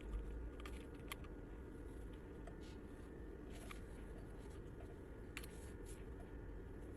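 Faint scattered clicks and light scrapes of hands and tools handling a phone screen, over a low steady hum.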